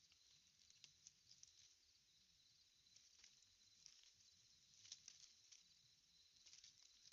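Near silence: faint outdoor background, a high hiss dotted with many small clicks and rustles.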